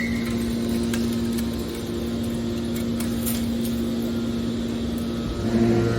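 Steady machine hum, one constant tone with a few faint clicks over it, as from industrial machinery running, such as a metal baler's motor and hydraulic pump.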